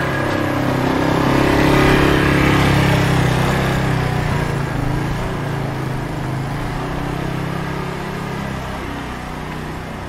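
A motor vehicle's engine passing close by, growing louder to a peak about two seconds in, then slowly fading away.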